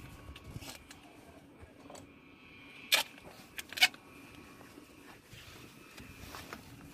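Two sharp clicks or knocks just under a second apart, over faint background noise, as pipes in a service shaft are handled.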